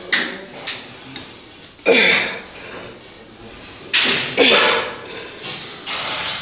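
A man grunting and crying out with effort on each rep of a heavy back exercise on a weight machine. Each loud, strained cry drops in pitch, coming about every two seconds.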